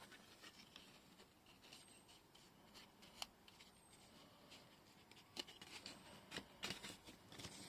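Faint rustling and handling of sturdy paper, with a sharp light click about three seconds in and a run of louder rustles and taps from about five and a half seconds on.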